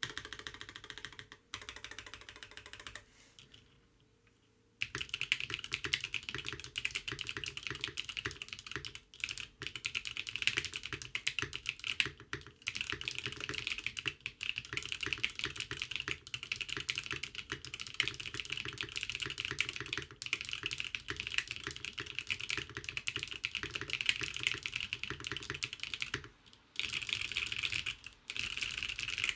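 Typing on an Envoy 65 mechanical keyboard fitted with Zaku II switches, a carbon fiber plate and Domikey Jade keycaps: a fast, steady stream of keystrokes, with a pause of about two seconds a few seconds in and short breaks near the end.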